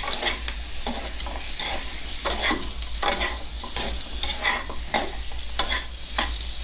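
Pork ribs sizzling in a nonstick frying pan while being turned over with metal tongs, with irregular clicks, about three a second, of the tongs against the pan and the meat. A steady low hum runs underneath. The ribs are being seared part-way to cut their gamey smell before braising.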